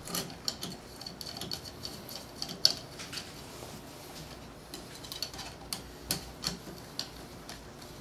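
Scattered light metallic clicks and ticks, irregular and without a steady rhythm, as a small machine screw is started by hand and a hex key is fitted into its head.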